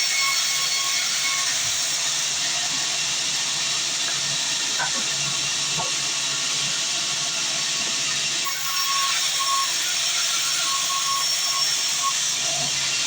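Sawmill band saw cutting through a long mahogany log: a steady, high hiss of the blade in the wood, with a faint whine from the machine.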